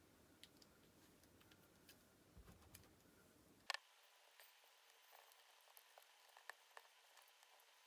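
Near silence, with faint scattered small clicks and one sharper click a little under four seconds in: small parts of a Walkman being handled during disassembly.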